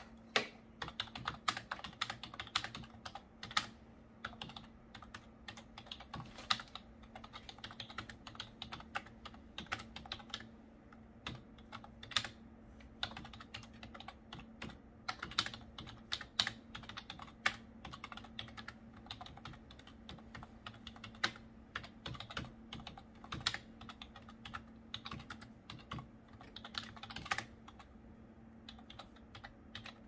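Typing on a full-size membrane office keyboard: a continuous, uneven run of keystroke clicks. A faint steady low hum runs underneath.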